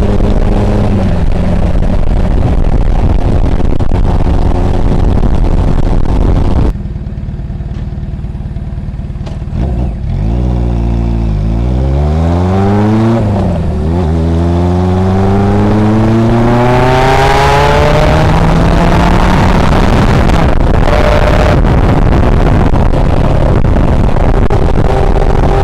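Suzuki GS750's air-cooled inline-four engine, loud and deep through a homemade 50 mm silencer, under way. It holds steady, then drops abruptly to quieter, low running when the throttle is closed, then revs up in rising pitch. After a short dip partway through, as it shifts up, it makes a long pull before settling into steady running.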